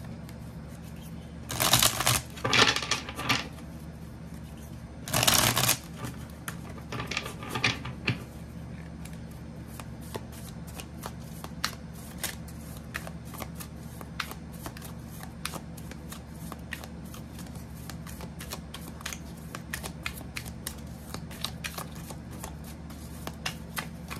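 A deck of tarot cards being shuffled by hand. There are a few louder bursts of shuffling in the first six seconds, then a long run of quick, short card clicks and flicks, over a steady low hum.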